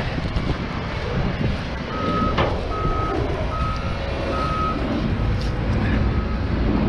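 Vehicle reversing alarm beeping evenly, about six beeps under a second apart that fade toward the end, over a steady rumble of wind and traffic.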